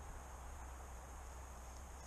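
Quiet outdoor background: a faint, steady low hum and hiss with no distinct event.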